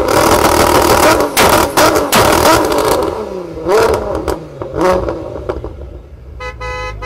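Big-turbo VW R32's VR6 engine revving hard with a rapid string of sharp exhaust pops and bangs, then the revs and pops die away over the next few seconds. Near the end a horn beeps in several quick pulses.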